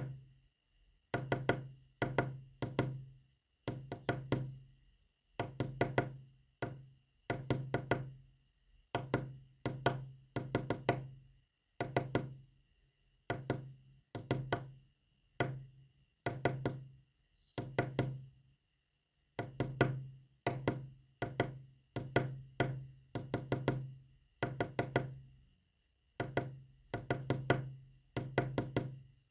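Sharp knocks tapped out in quick groups of a few strokes, with short pauses between the groups, sending a message in Morse code.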